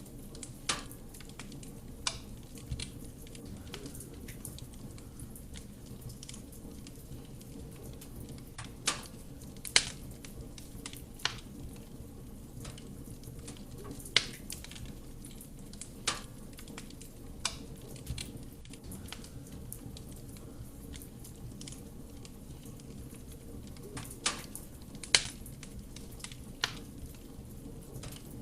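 Wood fire burning in a fireplace: a steady low rush of flame with sharp crackles and pops from the burning wood, coming irregularly every second or few.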